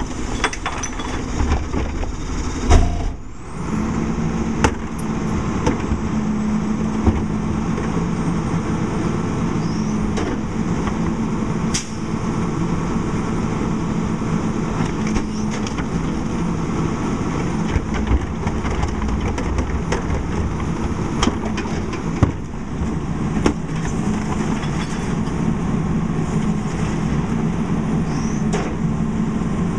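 Rear-load garbage truck's engine running steadily under load while its hydraulic cart tippers lift and empty wheeled carts into the hopper, the engine note rising and firming up about three seconds in. Sharp knocks break through every few seconds as the plastic carts bang against the tipper and hopper.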